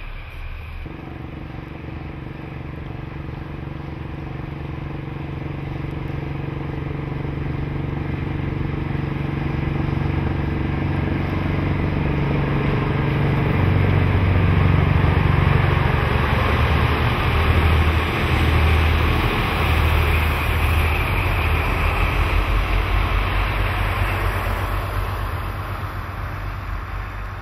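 Diesel engine of a JNR DD14 rotary snowplough locomotive passing close by, first a steady low drone. It builds into louder rumbling and rushing noise as the train draws level around the middle, then eases off near the end.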